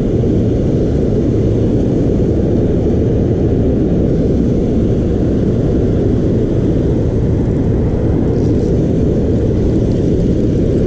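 Steady low roar of a waterfall and the rushing whitewater below it.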